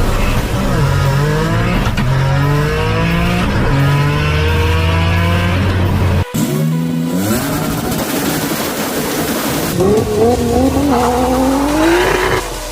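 Car engine accelerating hard several times, its pitch climbing and then dropping at each gear shift. A little past halfway the sound cuts off abruptly, then comes a short loud hissing rush before the engine pulls up through the revs again near the end.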